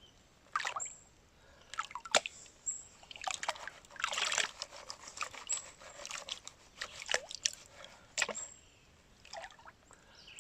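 Water sloshing and washing gravel over the lip of a gold pan in irregular swishes, with a few sharp clicks.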